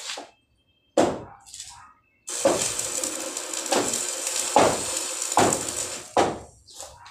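Electric arc welding on steel pipe: a sharp strike about a second in, then the arc crackles steadily for about four seconds, with louder pops under it roughly every second.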